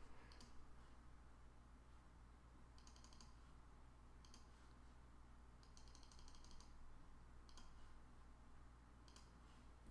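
Faint clicks of a computer mouse and keyboard: scattered single clicks and two short quick runs of clicks, over a low steady hum.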